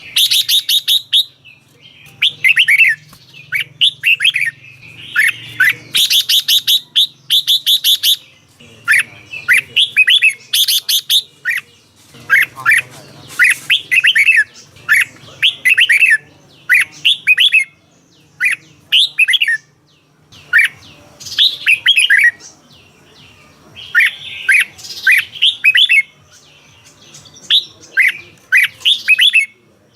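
Red-whiskered bulbul singing: short phrases of quick, falling whistled notes, repeated over and over with brief pauses, some phrases breaking into rapid buzzy trills.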